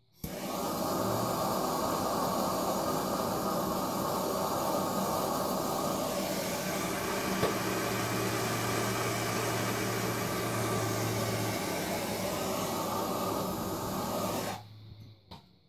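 Handheld gas torch burning with a steady hiss of flame, starting right at the beginning and shutting off suddenly about a second before the end.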